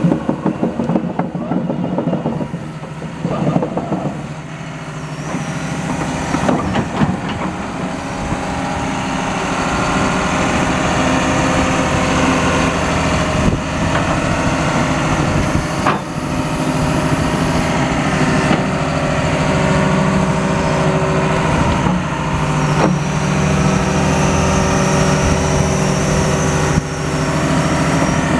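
John Deere 210G LC excavator's diesel engine running, picking up speed and getting louder over the first several seconds, then holding a steady note. A few sharp knocks sound over it.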